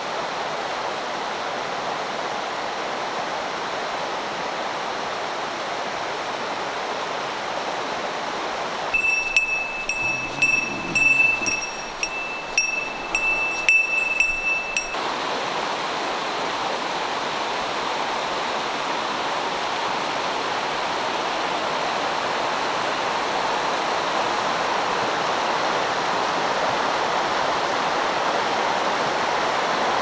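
Steady rushing of a shallow mountain stream over rocks and gravel. For about six seconds in the middle, a run of short, high, steady-pitched notes repeats over the water, along with a few uneven louder knocks.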